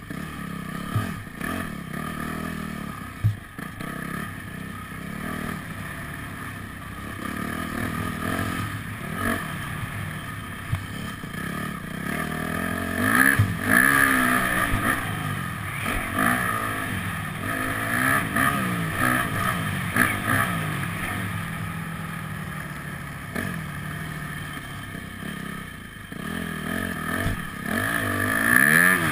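Motocross dirt bike engine revving up and down, its pitch rising and falling again and again as the rider opens and closes the throttle around the track, heard from the rider's helmet camera.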